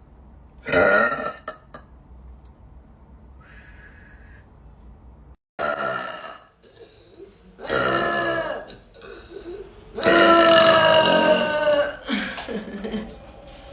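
A woman burping repeatedly, five or six separate burps. The longest and loudest starts about ten seconds in and lasts about two seconds.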